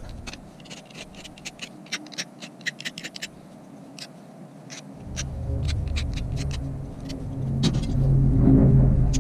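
Quick short scraping strokes of a hand tool deburring the edge of cut aluminium, about three or four a second for the first few seconds. From about halfway a vehicle engine's low rumble grows in and becomes the loudest sound.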